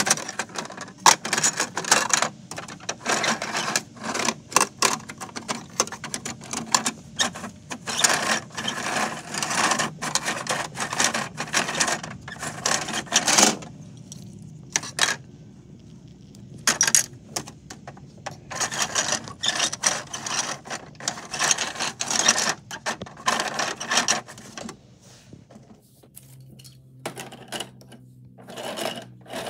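Hard plastic clicking and rattling as small toy pieces are handled and dropped into the rear hopper of a Bruder toy garbage truck, in quick irregular clatters that ease off about halfway through and again near the end.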